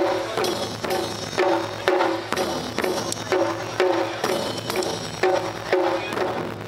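Taiko drum ensemble playing: large barrel drums struck with wooden sticks in a steady, driving rhythm, about two heavy strikes a second with lighter strikes between.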